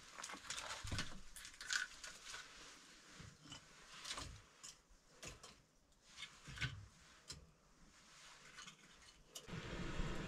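Firewood sticks and twigs handled and set down by hand, with scattered light knocks, clicks and rustles. A longer rushing sound comes near the end.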